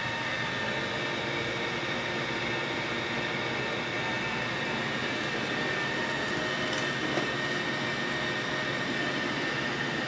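iRobot Roomba i6+ robot vacuum running across carpet: the steady hum of its suction motor and brush roll, with a constant high tone over it.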